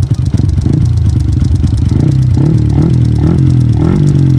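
Suzuki Smash 115 single-cylinder four-stroke engine idling with a loud, fast valvetrain ticking, blipped up in revs several times in the second half. The ticking comes from a 6.8 regrind camshaft, which the owner says such regrind cams typically do.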